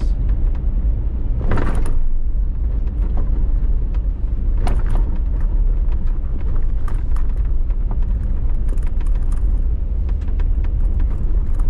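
Jeep Wrangler JKU driving fast over a bumpy back road: a steady low rumble of engine and tyres, with scattered knocks and rattles as it goes over bumps and holes, and a louder rattle about one and a half seconds in.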